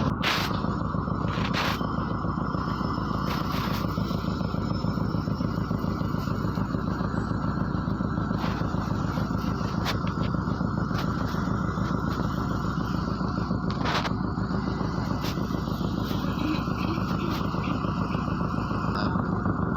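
MAZ-103 city bus driving, heard from inside the cabin: steady engine and road noise with a few short rattles and clicks.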